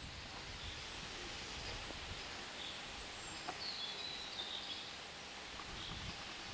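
Outdoor ambience among trees: a steady low rumble with a few faint high bird chirps near the middle.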